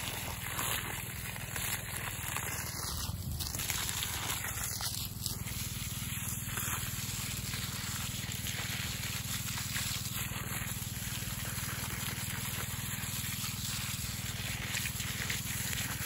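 Steady stream of water from a garden hose pouring onto wet soil and dry grape leaves, a continuous splashing trickle.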